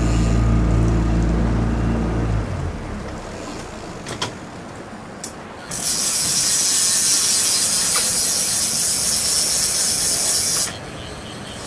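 A boat motor runs low and steady, then shuts off about two seconds in. About six seconds in, a single-action fishing reel's ratchet buzzes steadily for about five seconds, then stops suddenly: a hooked salmon is pulling line off the reel.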